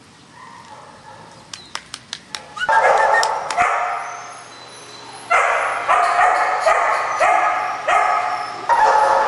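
Puppies barking and yelping over and over, in runs of about two barks a second, after a few sharp clicks near the start.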